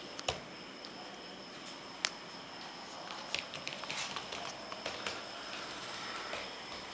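Laptop keyboard typing: scattered soft key clicks, coming thicker between about three and five seconds in, over a faint steady high-pitched whine and hiss.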